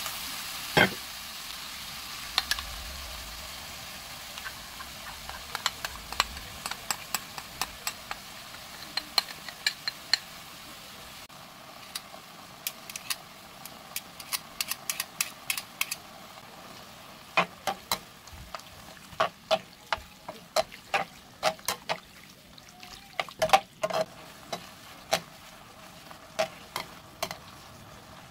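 Udon noodles, shrimp and ham sizzling in a nonstick wok, the frying hiss dying down over the first several seconds, while metal tongs click and scrape against the pan as the noodles are stirred and tossed. The clicking comes thicker and louder in the second half.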